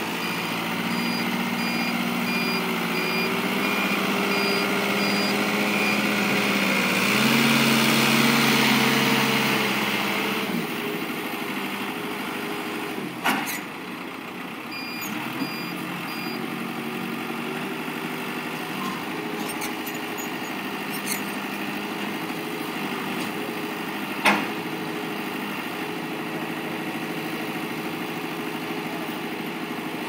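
Heavy-equipment diesel engines running steadily, with a backup alarm beeping at an even pace for the first several seconds and briefly again about fifteen seconds in. The engine note rises and grows louder around seven to ten seconds in. Two sharp metal clanks come about thirteen and twenty-four seconds in.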